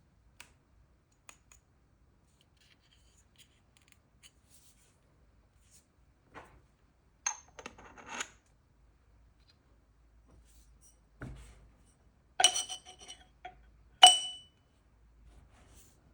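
Unboxing handling sounds: light clicks and rustles of packaging and small parts, a few scuffs, then two sharp, ringing clinks of hard objects knocked together near the end.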